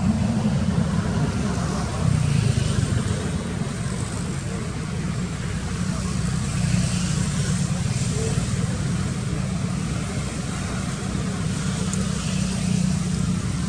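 Steady low rumble with hiss, the outdoor background noise behind the scene; no distinct call or knock stands out.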